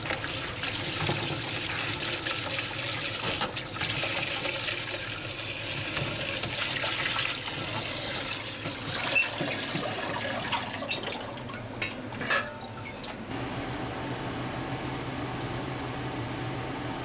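Tap water pours and splashes into a plastic colander in a steel sink as hands rinse noodles and seaweed. After about ten seconds the splashing stops, a few knocks follow, and a steady low hum is left.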